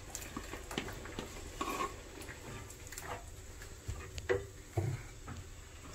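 Irregular light knocks, taps and scrapes of a small container and a wooden spoon against an earthenware pot as thick coconut paste is scraped in and stirred into the curry, with a few louder knocks between about four and five seconds in.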